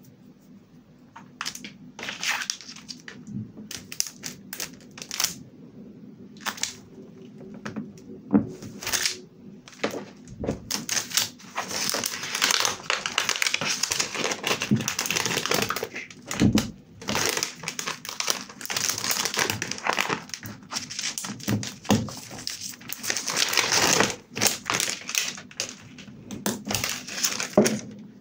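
Close-up crinkling and rustling of a blue transparent plastic sheet and paper being handled and pressed onto a journal page. Scattered small taps and clicks at first, then nearly continuous crinkling from about a third of the way in.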